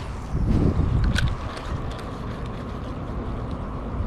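Wind buffeting a body-worn camera microphone, a loud low rumble that swells about half a second in and then settles, with a few faint ticks.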